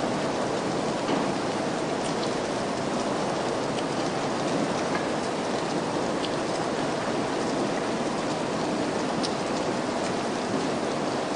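Steady rain falling: a constant, even hiss with scattered individual drops ticking through it.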